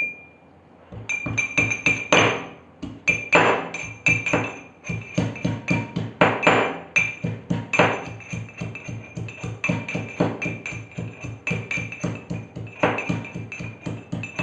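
Ginger being pounded with a mortar and pestle: repeated strikes, several a second, starting about a second in, with a steady ringing tone sounding under the blows.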